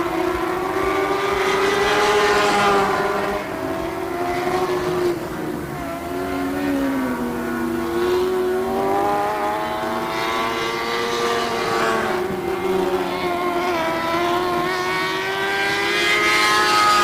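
Lightning sprint cars racing, several engines at once, their pitch rising and falling with throttle and passing. The sound swells as the pack goes by, about two seconds in and again at the end.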